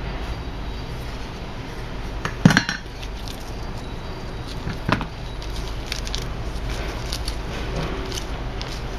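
Handling noise from unpacking an SSD kit: a blue metal 3.5-inch drive bracket and small plastic bags of mounting screws being picked up and set down. A sharp metallic clunk about two and a half seconds in, a smaller clink near five seconds, then light clicks and rustles, over a steady low hum.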